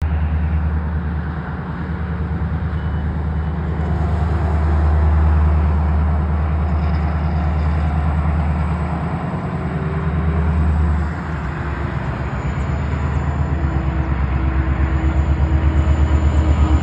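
Norfolk Southern diesel-electric yard locomotive working with a slug, its engine running as a steady deep rumble that gets louder as it approaches, taking on a quick, even pulsing beat in the last few seconds.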